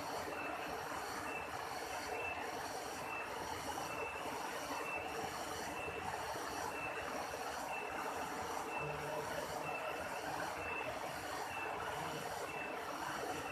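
Steady rushing noise of a waterfall, with a short high chirp repeating about once a second over it.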